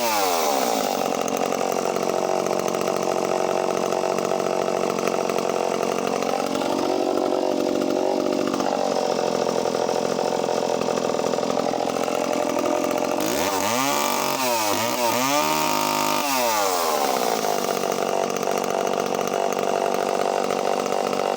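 Echo CS-451VL two-stroke chainsaw engine running just after a restart: its speed drops as it comes down to idle at the start, it idles steadily, and a little past the middle it is revved several times in quick succession before settling back to idle.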